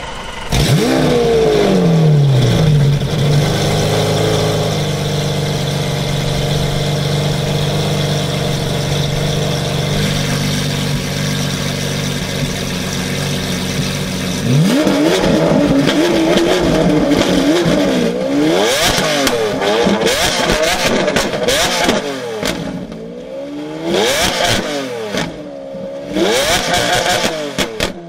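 Lamborghini Aventador's 6.5-litre V12 starting with a rev flare that falls back to a steady idle. From about halfway through, it is blipped repeatedly, the revs rising and falling with sharp pops from the exhaust as they drop.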